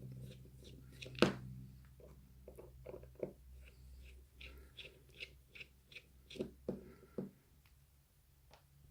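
Scattered small clicks and taps of metal lock parts and tools being handled as a padlock's cylinder is taken apart, with one sharper click about a second in.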